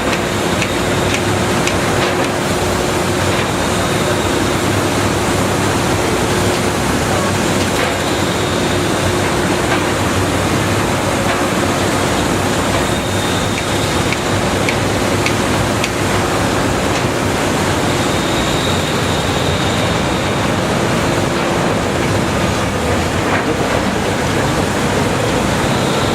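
Caterpillar 320DL excavator's diesel engine and hydraulics working steadily while digging clay. The noise is loud and even throughout, with a faint high whine that comes and goes and a few light clicks.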